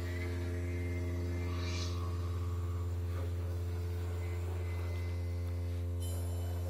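Modular synthesizer patch holding a steady low, humming drone made of several sustained tones stacked above one another, with faint high glides and chirps drifting over it.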